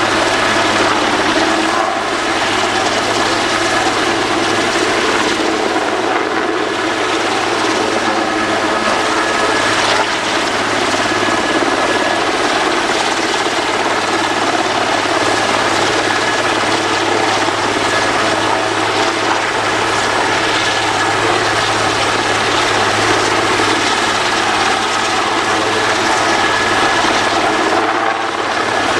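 Border Guard rescue helicopter hovering low over the sea during a winch rescue: steady, loud rotor and turbine noise with a constant low hum, its downwash churning the water.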